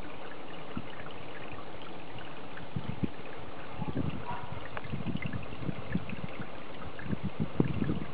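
Steady trickle of pond water, with irregular low buffeting of wind on the microphone that grows stronger near the end.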